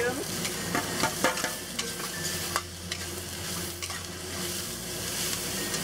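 Oyster mushrooms sizzling in a hot oiled wok as they are stir-fried, with several sharp clinks and scrapes of a metal spatula and plate against the pan in the first second and a half and another clink a little later.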